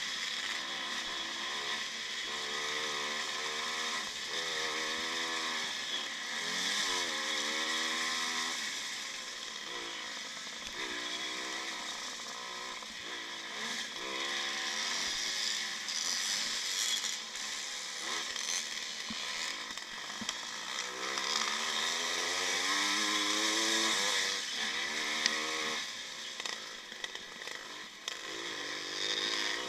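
1955 Maico two-stroke single-cylinder motocross bike racing, its engine revving up and dropping again over and over as it is ridden hard through the gears, heard from on board with wind rush over the microphone.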